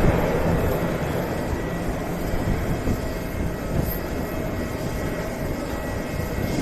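Airplane engines running, a steady loud rumbling noise that is a little louder at the start.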